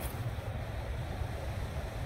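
Steady low outdoor rumble of wind on the microphone and road traffic, with a brief high swish right at the start as a fishing rod is cast.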